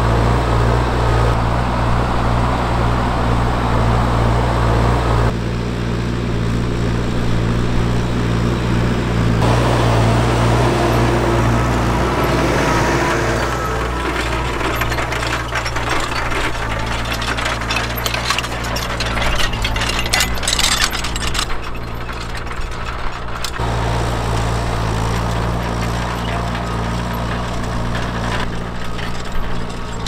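Fendt 415 Vario tractor engine running steadily under load while pulling a reversible plough. Through the middle stretch the engine drops back and the crackle and clatter of clay being turned by the plough bodies and rolled by the furrow press rings takes over.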